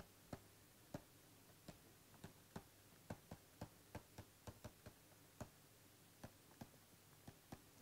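Faint, irregular light clicks of a stylus tapping and stroking on a pen tablet while words are handwritten, two or three clicks a second.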